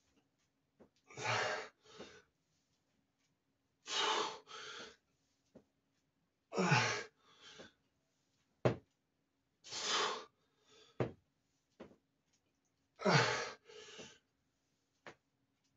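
A man's forceful breathing through barbell squat reps: a loud, sharp breath followed by a shorter one about every three seconds, five times, two of them ending in a low grunt that drops in pitch.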